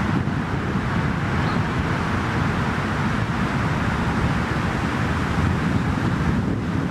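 Steady road traffic noise, with wind buffeting the microphone as an uneven low rumble.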